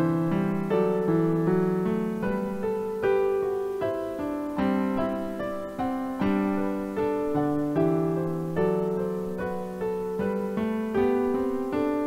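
Slow piano music: single notes and chords struck one after another, each left to ring and fade.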